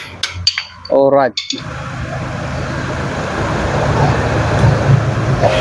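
A few sharp metal clicks as a screwdriver works at a wheel hub's dust cap. Then a steady mechanical hum with noise runs on and slowly grows louder.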